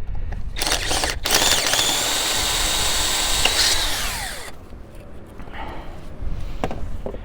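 Electric drill drilling off the heads of corroded distributor cap screws: a short burst, then a steady run of about three seconds with a whine that falls in pitch as the drill winds down.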